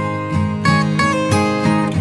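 Background music: acoustic guitar playing a steady run of plucked notes.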